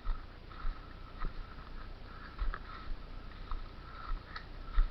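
Footsteps walking, soft irregular steps about two a second, with light rustling.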